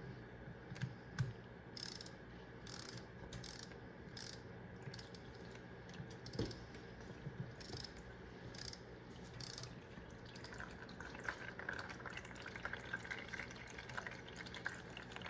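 Hot engine oil draining from a motorcycle engine into an oil pan, dripping and trickling with scattered light clicks, then running as a steadier stream from about ten seconds in.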